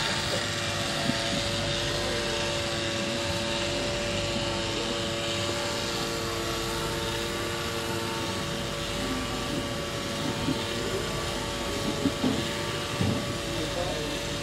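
A steady mechanical drone with several held tones over a constant hiss, with a few faint knocks in the second half.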